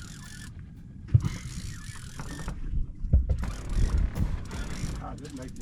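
Fishing reel being cranked, its gears clicking, over low wind rumble on the microphone, with a sharp knock about a second in and more knocks later.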